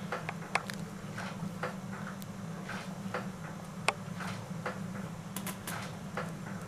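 Fingers working a section of coiled afro hair close to the microphone: irregular soft rustles and small clicks, with a sharper tick about four seconds in and a quick cluster a little later. A steady low hum runs underneath.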